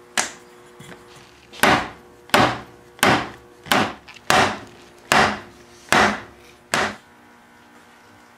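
Mallet blows on a wooden chair frame, knocking its glued joints together during clamp-up: one knock, then after a pause eight more about two-thirds of a second apart.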